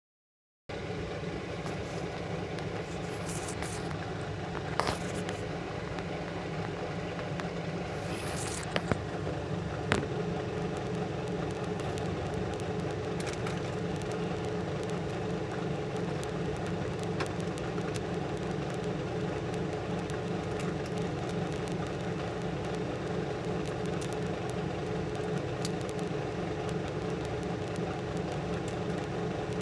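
Steady mechanical hum of a clean-room air blower, with a few light clicks and taps about 5, 9 and 10 seconds in.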